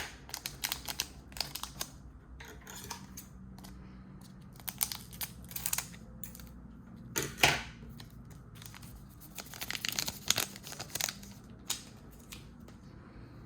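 Trading card pack wrappers being torn open from the side and crinkled, in irregular bursts of short crackles with a louder rip about seven seconds in.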